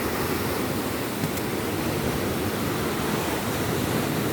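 Steady rushing noise of a rough, choppy sea.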